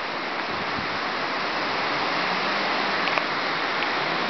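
Hurricane wind rushing through the leafy crowns of tall trees: a steady, loud rustle of leaves and branches that swells slightly over the few seconds, with a faint low hum in the background from about halfway in.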